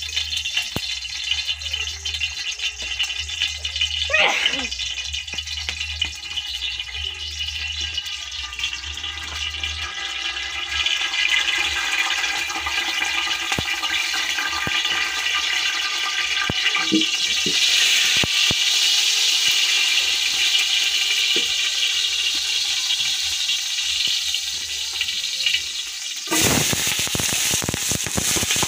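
A steady hiss from a pot heating over a wood fire. Near the end, sliced onions go into the hot oil and start sizzling loudly.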